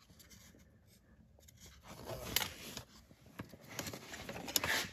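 Light scraping and a few sharp clicks of a plastic car blower motor and its fan being handled, with the clearest clicks about two and a half seconds in and near the end.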